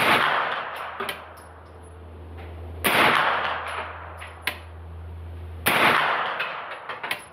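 Three shots from a Kodiak K9 9mm carbine, fired slowly about three seconds apart. Each is a sharp crack with a long echoing tail, and a few fainter sharp clicks come in between.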